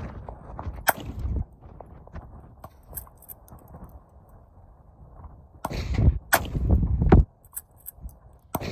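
Sharp cracks of gunfire: one about a second in, another just past the middle, and a few fainter ones. Bursts of low wind rumble on the microphone sit between them.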